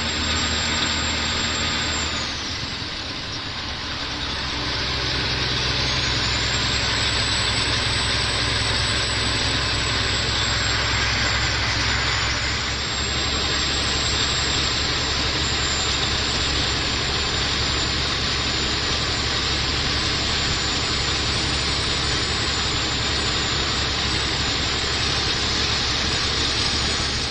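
Cat 3406E inline-six diesel of a Freightliner FLD120 semi truck heard from inside the cab while driving, a steady engine drone under road and tyre noise. The engine note dips briefly two to three seconds in and changes again about thirteen seconds in.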